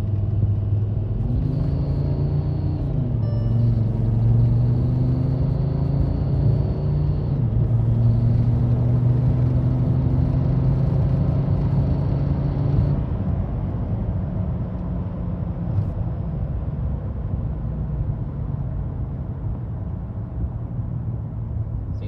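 VW Touareg's V10 TDI diesel engine, heard from inside the cabin, pulling hard under full throttle through its automatic gears. Its note climbs, drops at upshifts about 3 s and 7.5 s in, climbs again, then eases off and settles steadier from about 13 s. Above 2000 rpm it still seems to have the stutter the owner is diagnosing as a misfire.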